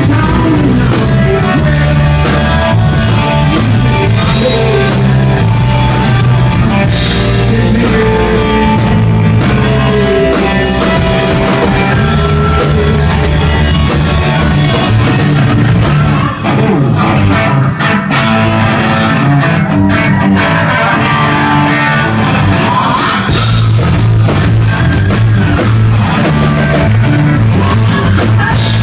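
Live rock band playing loud: electric guitar, bass and drum kit, with a singer's voice. A little past the middle, the bright, hissy top of the sound falls away for a few seconds, then comes back.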